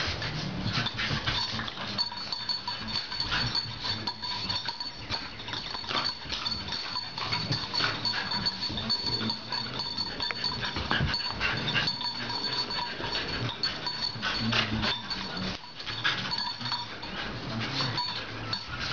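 Bulldog puppies barking and yapping at each other in rough play, in short, irregular, high-pitched bursts.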